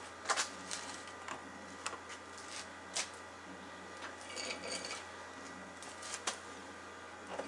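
Quiet room tone with a steady low hum, broken by a few faint scattered clicks and a brief soft hiss about halfway through.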